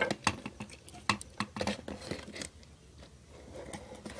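Small clicks and scratches of hand-handling: copper wires being twisted together by hand at the terminals of a plastic switchboard, with light knocks of the screwdriver and board. The clicks come thick in the first two seconds or so, then thin out and grow fainter.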